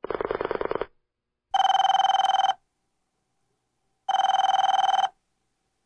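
A telephone ringing: two electronic rings, each about a second long with a rapid warble, some two and a half seconds apart, after a short buzzing burst at the very start.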